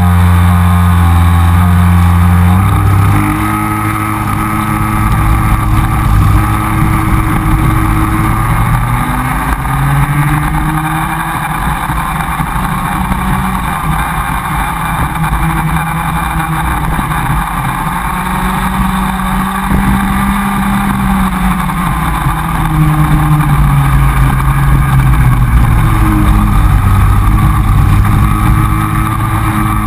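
Comer cadet kart's small two-stroke engine heard onboard, with the engines of the karts close ahead mixed in. It holds a steady note for the first couple of seconds, then rises and falls in pitch as it revs up on the straights and drops off into the corners.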